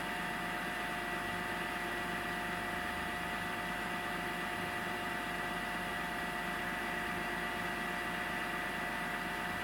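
BMW E46 328's straight-six engine running steadily after a cold start, with a constant high-pitched whine over it: the noise the owner is documenting.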